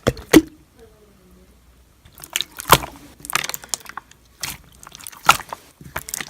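Irregular sharp clicks and taps, about a dozen, with the loudest just after the start and around three and five seconds in. It is nearly quiet for about a second near the start.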